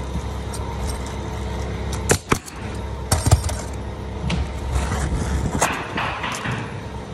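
Sharp knocks and clicks from roofing work on a shingle roof, four louder ones spread over the stretch, over a steady low rumble.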